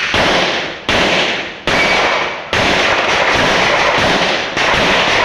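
A string of gunshots: five sharp reports, the first four less than a second apart and the fifth after a pause, each followed by a long, loud echo.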